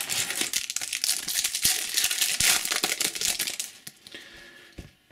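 Crinkling and rustling of Topps Match Attax trading cards handled by hand, full of small clicks, for about three and a half seconds before it fades.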